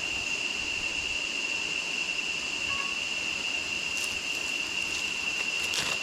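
Insects droning in one steady, continuous high-pitched tone, with a couple of faint clicks near the end.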